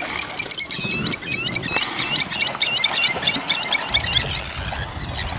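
African wild dogs twittering: many rapid, high-pitched, bird-like chirps overlapping, thinning out about four seconds in, when a low steady rumble sets in.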